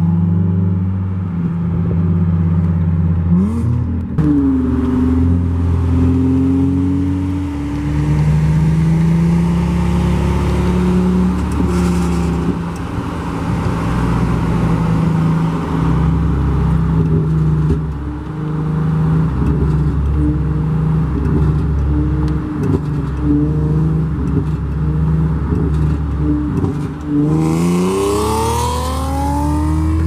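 Car engines pulling hard at full throttle in a rolling race. The pitch climbs steeply about three seconds in and again near the end, with a steady loud drone in between.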